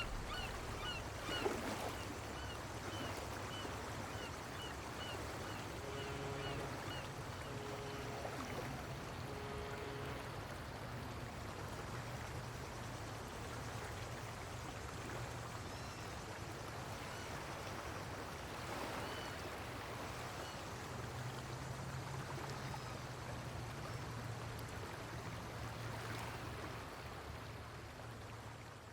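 Quiet outdoor ambience with a steady wash of noise and a low hum. A run of short high chirps, about three a second, in the first few seconds, and three short low honks between six and ten seconds in.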